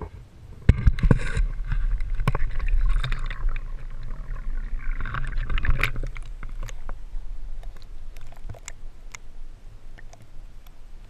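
A sharp knock about a second in, then several seconds of splashing and sloshing water as the camera dips into the water beside a kayak. It gives way to muffled underwater sound with scattered small clicks.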